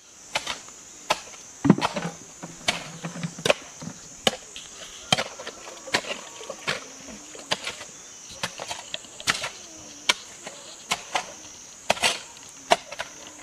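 Hand digging tool striking earth and stones again and again in irregular blows, about one or two a second, as a pond hole is dug out by hand. A steady high insect drone runs underneath.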